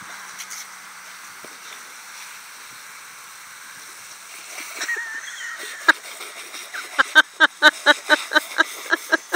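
Water spraying from a garden hose as a dog bites and laps at the jet. In the last few seconds comes a quick run of loud pulses, about five a second.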